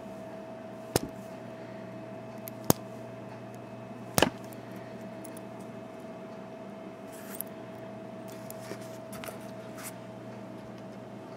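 Small metal clicks and taps from tools and padlock cylinder parts being handled while working a stuck key pin out of the cylinder: three sharp clicks in the first half, lighter ticks after, over a steady hum.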